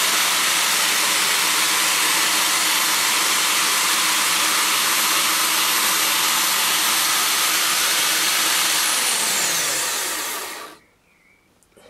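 Drill motor of an ER20 toolpost milling fixture running at about 1,900–2,000 rpm, its end mill milling a slot in an aluminium bar. Near the end its whine falls in pitch as the motor is switched off and runs down, then the sound cuts off.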